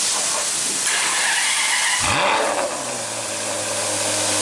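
Ferrari 599 GTO's 6.0-litre V12 starting up about two seconds in: a quick flare of revs that settles into a steady idle, over a constant hiss.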